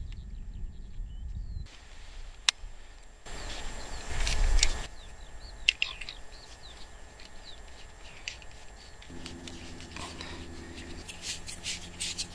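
Small birds chirping, with a few sharp clicks as a fishing rod is handled and a spinning reel is fitted to it, and a brief low rush of noise near the middle.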